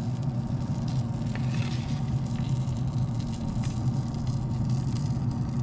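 Steady low hum of a Pit Boss pellet grill's combustion fan, still running in the grill's shutdown cycle, with a few faint clicks of a metal spatula against a sheet pan.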